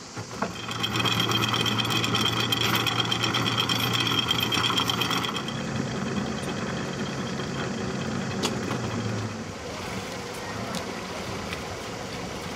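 A boat's motor running steadily with a metallic rattle over it for the first few seconds, then stopping about nine seconds in.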